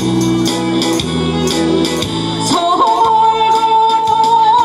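A woman singing into a microphone over an amplified backing track with a steady beat.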